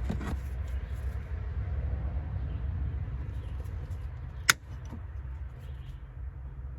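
A single sharp click about four and a half seconds in, from hands working on wiring under a car's dash, over a steady low rumble.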